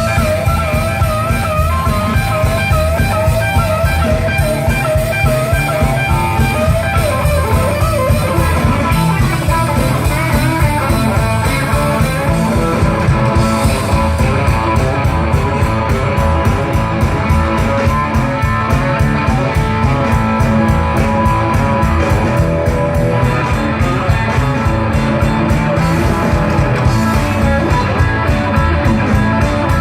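A live blues-rock band playing an instrumental passage: guitar over drums and a steady beat. A lead line with wavering, bent notes stands out for the first several seconds, then blends back into the band.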